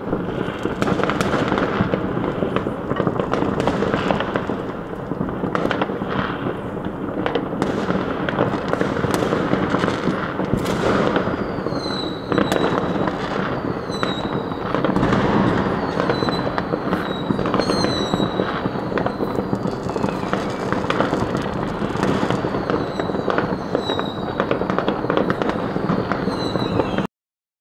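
Dense New Year's Eve fireworks: an unbroken mass of bangs and firecracker crackling. From about halfway on, short high whistles falling in pitch repeat about once a second. The sound cuts off suddenly near the end.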